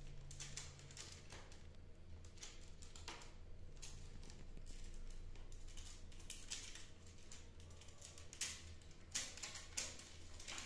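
A kitten's claws scratching and clicking on a perforated plastic board as she climbs it: irregular light scrapes and taps, with a few sharper ones near the end.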